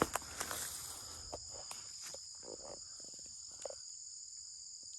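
A steady, high-pitched insect chorus, with a few faint knocks and rustles scattered through it.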